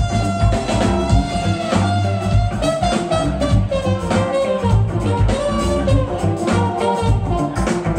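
Live funk band playing a groove on drum kit and bass, with a lead instrument holding long, slowly sliding melody notes over it.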